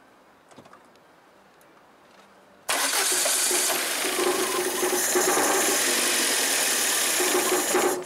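Starter cranking a VAZ-2110's carburetted four-cylinder engine: a loud, steady noise that starts suddenly a little under three seconds in, lasts about five seconds and cuts off abruptly. It is a first attempt to start the engine after the car stood a long time with water in it and was flushed out.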